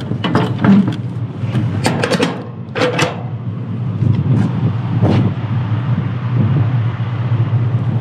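Metal clanks and knocks as the semi-trailer's rear-door locking-bar handles are swung shut and latched into their keepers, one clank ringing briefly about three seconds in. A steady low engine hum runs underneath.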